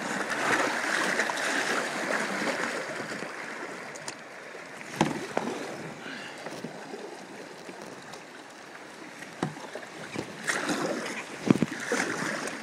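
A kayak running down river flumes: rushing water throughout, louder in the first few seconds, with sharp knocks and splashes of the hull and paddle, the loudest about eleven and a half seconds in.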